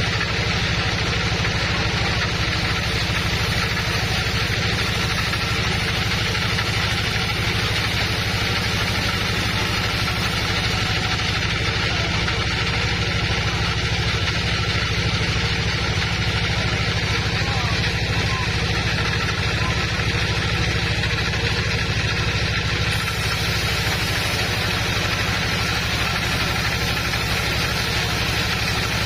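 Sawmill machinery running steadily: a constant low motor drone under an even hiss, with no pauses. The hiss gets a little brighter about three quarters of the way through.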